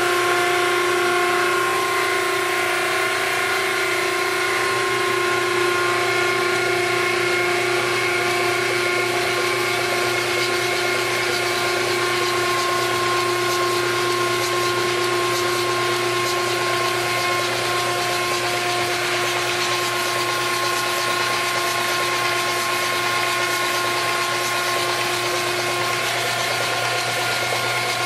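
A Simtester's electric drive spinning a big-block Chevrolet 496 stroker engine without firing it, to push oil through it and check for leaks and compression. It starts up at once and runs at a steady speed with a constant-pitched mechanical whir.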